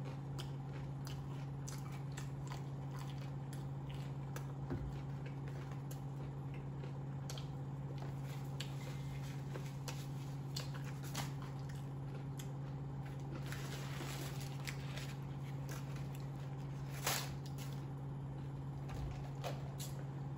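Close-up eating sounds: chewing and biting of fast food, with scattered wet mouth clicks and one sharper knock near the end. A steady low hum runs underneath.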